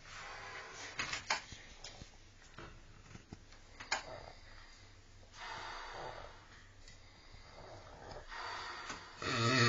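A sleeping dog snoring: slow, uneven, noisy breaths with a few short clicks about a second in and about four seconds in, the breathing growing louder near the end.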